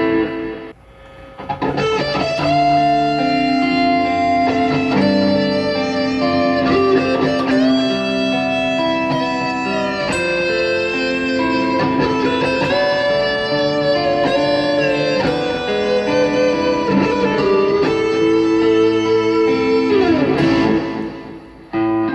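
Electric guitar played through a Boss GT-1000 Core multi-effects processor: a sustained melodic lead line with string bends and vibrato. It drops out briefly about a second in and fades away near the end.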